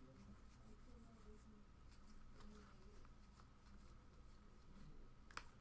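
Near silence: faint room tone, with one soft sharp click near the end.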